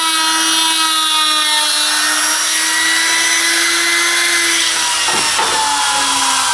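Trim router running, its motor whine steady while it routes a groove in a board, then sagging in pitch after it is lifted off, with a few knocks about five seconds in as it is set down. The router is a 220 V machine run on a 110 V supply, so it turns slower and runs quieter.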